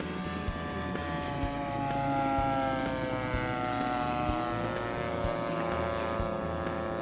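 Propeller engine of a scratch-built giant-scale radio-control Curtiss Pusher replica running at high power during its takeoff roll. Its pitch slides down a little partway through, then holds steady.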